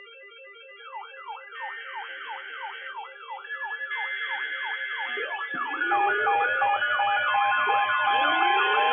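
Several electronic emergency sirens layered one over another. It opens with fast alternating beeps, then quick yelp sweeps falling about three times a second, and from about halfway more sirens and steady tones join, building louder.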